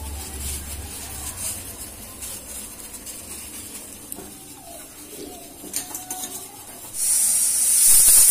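A stovetop pressure cooker letting off steam through its whistle weight: a loud, steady, high hiss starts suddenly about seven seconds in. Before it come quieter stovetop sounds, a low rumble with a few clinks.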